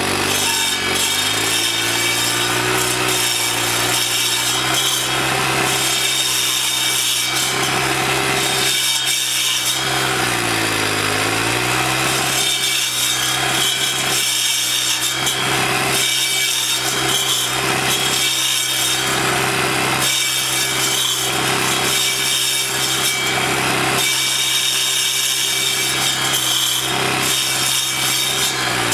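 Troy-Bilt four-stroke sidewalk edger, converted to a stump grinder, running at speed while its toothed blade grinds into a stump and roots at ground level. About ten seconds in, the engine note sags briefly as the blade bites, then picks back up.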